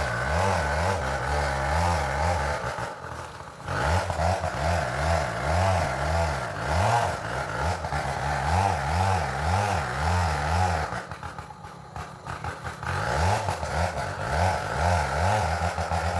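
Two-stroke Stihl chainsaw running at high revs, its pitch wavering, with two short drops in level about three and eleven seconds in.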